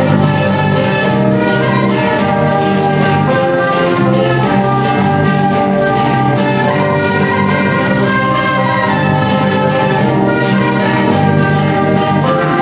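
Live band playing an instrumental passage: an end-blown flute carries the melody over acoustic guitar, electric guitar and bass guitar.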